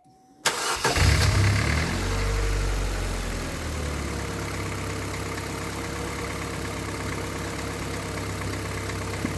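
Car engine starting: it fires up about half a second in, runs faster and louder for the first couple of seconds, then settles to a steady idle.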